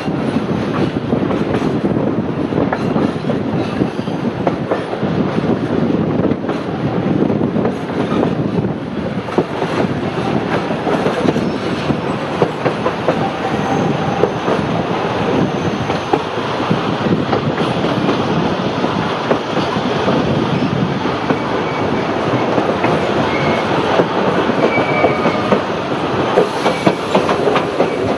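Narrow-gauge heritage passenger train running, heard from aboard a carriage: a steady rumble with the wheels clicking over rail joints, and brief faint squeals from the wheels now and then.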